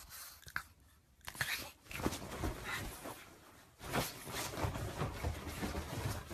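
A pug scrambling about on a bed: irregular rustling and scuffling of the sheets. It starts about a second and a half in and grows busier from about four seconds.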